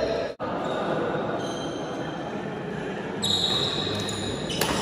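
Badminton doubles play on an indoor court: rackets striking the shuttlecock and players' footsteps, with a sharp racket hit near the end. The sound cuts out briefly just under half a second in.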